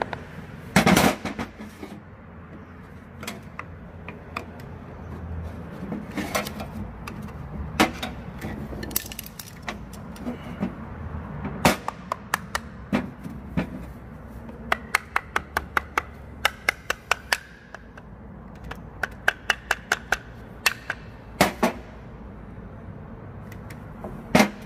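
Metal parts and hand tools knocking and clinking while a rice transplanter's rotor case is worked on. Scattered sharp knocks come with two runs of quick taps, about five a second, in the second half.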